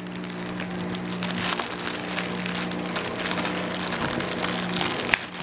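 Clear plastic packaging bag crinkling and rustling in irregular crackles as it is handled and pulled open by hand, over a steady low hum.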